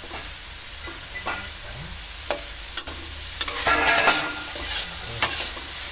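Ground chilli spice paste sizzling in oil in a metal wok while a metal spatula stirs and scrapes through it. A steady sizzle runs under a series of clicks and scrapes of the spatula on the pan, loudest about four seconds in.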